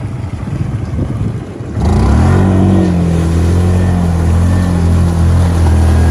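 ATV engine: an uneven rumble for about two seconds, then the engine revs up and holds a steady drone.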